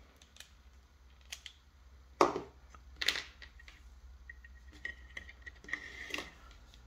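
Small plastic parts being handled and set down on a workbench: scattered sharp clicks and knocks, the two loudest about two and three seconds in, with lighter ticks near the end.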